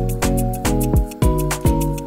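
Background music: sustained chords over a steady drum beat, about two beats a second.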